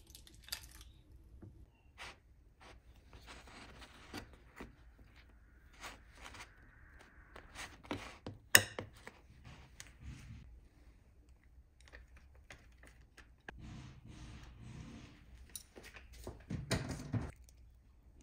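Food-prep handling sounds: the foil wrapper of a cream cheese portion crinkling, then a knife scraping as cream cheese is spread over a bagel half on a wooden cutting board. A single sharp click about halfway through is the loudest sound, and a louder clatter of handling comes near the end.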